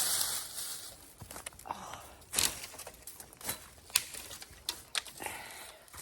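Brushy ash branches being handled: twigs and leaves rustling, loudest in the first second, then a scatter of sharp twig snaps and cracks.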